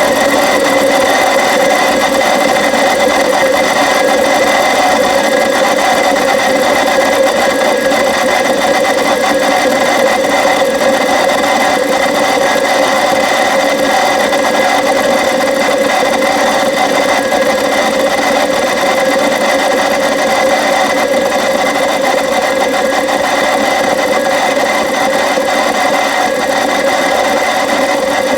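BMW N62B44 4.4-litre V8 running at cold idle just after starting, with a steady grinding noise over the engine sound.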